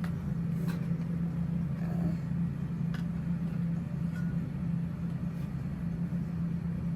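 Steady low mechanical hum, even in level throughout, with a few faint clicks.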